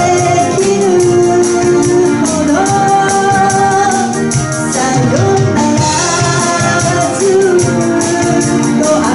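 Live band playing a pop song: drums and a steady shaken percussion rhythm under long held melody notes, loud and continuous.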